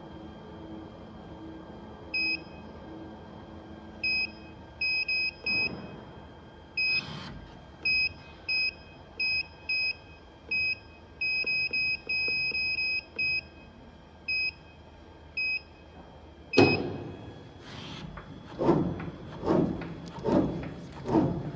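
A run of short, single-pitched electronic beeps at irregular intervals from the digital-knife CNC cutter's control panel as its buttons are pressed. Near the end comes a sharp knock, then a series of softer regular thumps a little under a second apart.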